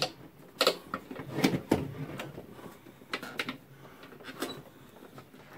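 Irregular light knocks, clicks and rustles as electrical wires capped with plastic wire nuts are pushed and tucked into a plastic electrical box.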